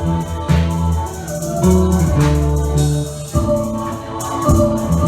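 Live looped electronic music: sustained bass and chord tones under a rattling, shaker-like percussion pattern, with the notes and the pattern changing about three seconds in.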